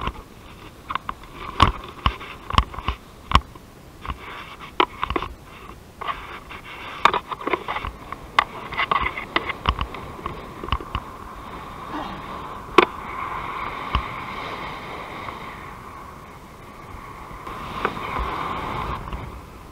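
Rustling and knocking of paragliding gear against the camera, over a steady rush of wind, while the wing is launched and the pilot takes off. The knocks fall away about twelve seconds in, leaving a smoother, steady rush of wind in flight.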